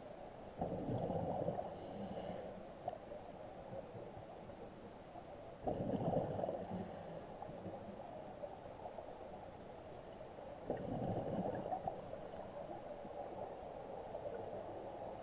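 Scuba diver breathing through a regulator underwater: three rumbling bursts of exhaled bubbles about five seconds apart, with a fainter hiss of inhalation between them.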